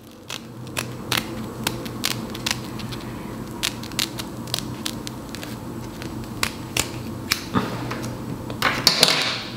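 Small scissors snipping through wig lace: a string of sharp clicks, about two a second, with a louder rustle near the end.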